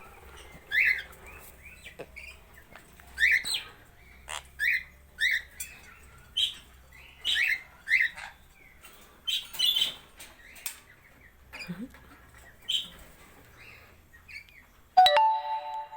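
Parrots giving short, sharp rising calls, about one every second or so, with quieter chirps between them. Near the end comes a loud steady tone of several pitches at once, lasting about a second.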